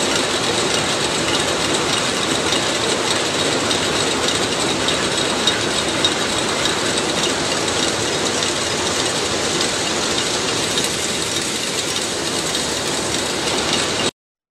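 Machine working red-hot ribbed steel bars, running with a steady, dense mechanical rattle. It cuts off abruptly near the end.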